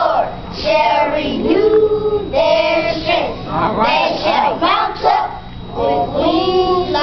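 A group of children's voices reciting together in unison.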